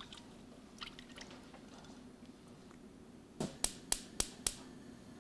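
Cooking oil being poured from a glass jug into a stainless steel frying pan, a faint trickle. About three and a half seconds in, a quick run of five sharp clicks.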